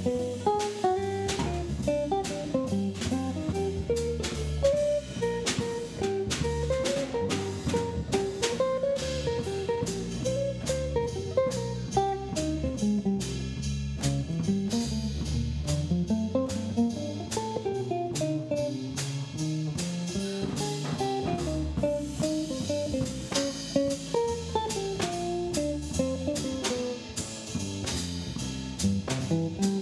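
Jazz trio playing live: an archtop electric guitar takes a single-note solo over a bass line and a drum kit keeping time on the cymbals.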